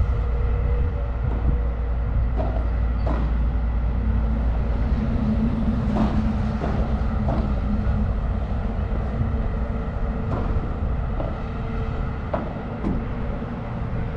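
Padel rally: sharp knocks of the ball off the rackets and court come at irregular intervals, often under a second apart, over a steady low rumble that is the loudest thing heard.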